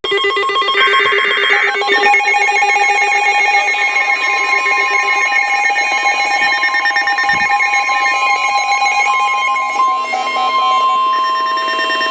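Emergency Alert System alert tones leading into a National Weather Service special marine warning: a steady electronic alarm made of several layered pitches, with a brief brighter burst about a second in.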